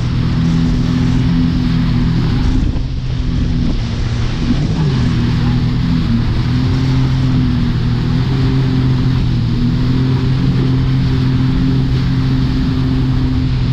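Towing speedboat's engine running steadily at speed, its note dipping briefly a couple of times, over the rush of water churned up in the wake.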